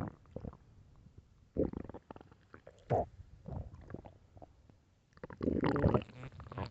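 An empty, hungry stomach growling: a string of short gurgles, then a longer, louder rumble starting about five seconds in.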